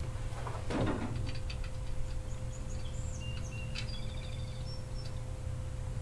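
A brief rustle about a second in, then faint clicks of small engine parts being handled, over a steady electrical hum. A few short, high chirps, like distant birds, come near the middle.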